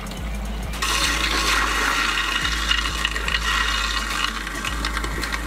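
Water from an RV faucet pouring steadily into a sink, starting about a second in. The camper's fresh-water lines are being flushed of pink winterizing antifreeze.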